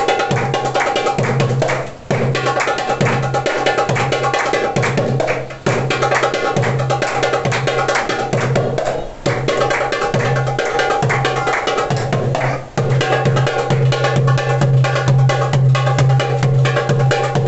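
Darbuka playing a fast solo over Arabic backing music, with dense rapid strokes and a short break about every three and a half seconds.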